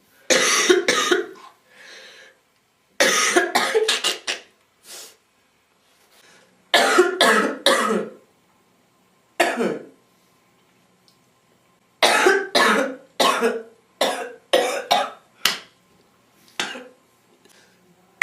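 A girl coughing in repeated fits: short clusters of hard coughs with gaps of a second or two between them, ending in a run of separate single coughs about every half second.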